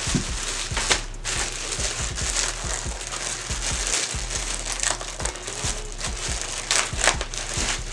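Plastic wrapping crinkling and rustling, with many small crackles, as the packaged clothing items are handled and unwrapped.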